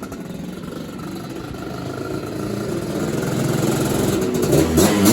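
Two-stroke single-cylinder engine of a 1985 Suzuki LT250R quad through a full FMF exhaust, running and growing louder as it comes closer, with revs rising and falling near the end.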